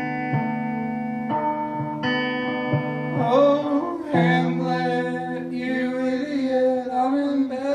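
Solo electric guitar playing clean chords that ring out, struck roughly once a second. A man starts singing over it about three seconds in.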